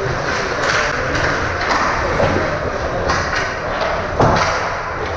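Ice hockey game in a rink: a steady wash of skating and crowd noise with a few sharp knocks and thuds of play, the loudest about four seconds in.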